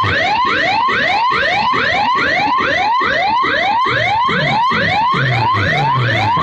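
Competition DJ speaker rig playing a loud siren-like effect: rapid rising whoops, about three to four a second, over a pulsing low bass.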